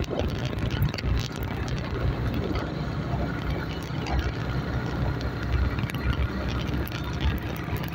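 Wind buffeting the microphone and steady low rumble from a bike riding along a rough road, with constant small flutters.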